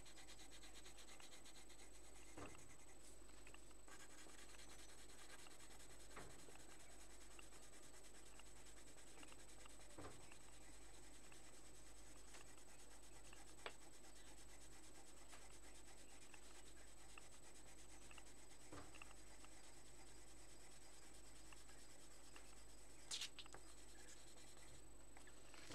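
Coloured pencil shading on paper: a faint, steady scratching as the pencil rubs back and forth. A few faint ticks come through, and a couple of sharper strokes near the end.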